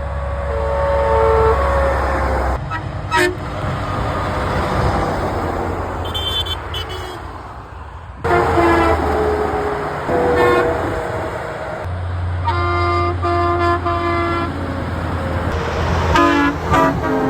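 A series of truck and lorry horns honking one after another as the trucks pass. There are several separate blasts, some a single note and some a chord of two or more notes, each lasting a second or two, over the steady rush of passing traffic.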